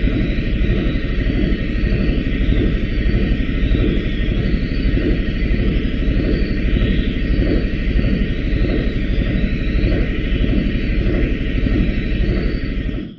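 Steady, loud mechanical rumble of a running machine, unchanging throughout, cutting off abruptly at the end.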